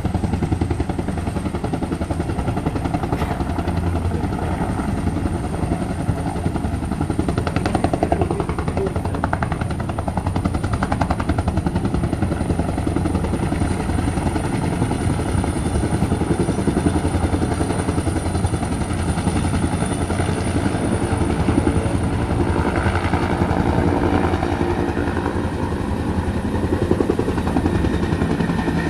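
Helicopter running steadily: the rhythmic beat of the rotor blades over a low engine drone, with a thin high turbine whine held throughout.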